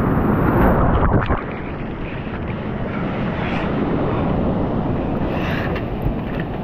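Ocean wave breaking right over a water-level camera: a loud rush of surf that drops off suddenly after about a second and a half, followed by a steady wash of whitewater foam around the microphone.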